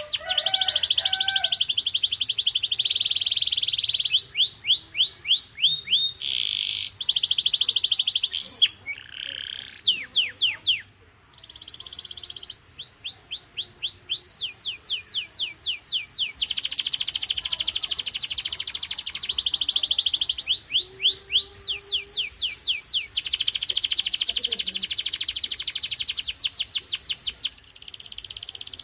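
Domestic canary singing a long song of fast trills, each a rapid run of repeated high notes, switching to a new trill every second or few, with a brief break about eleven seconds in.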